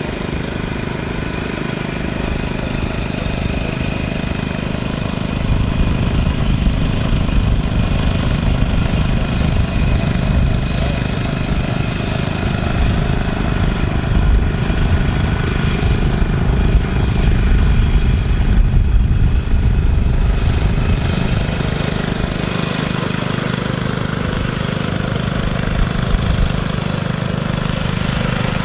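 Small engine of a walk-behind greens mower running steadily as it cuts the green, growing a little louder about five seconds in.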